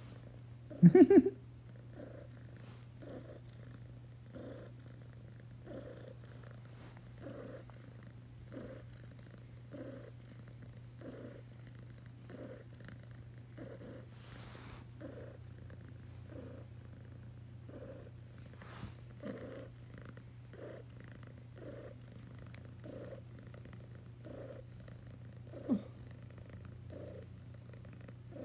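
Devon Rex cat purring steadily while being scratched under the chin, the purr swelling softly with each breath at a slow, even pace. Two brief louder sounds break in, about a second in and again near the end.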